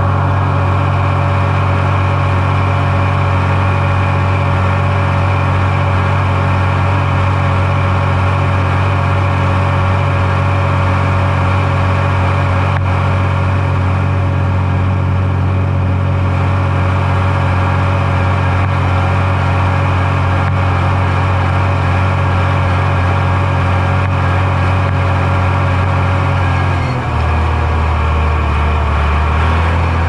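Farm machine engine running steadily at a constant speed. About 27 s in, its note drops to a lower, steady pitch as the engine slows.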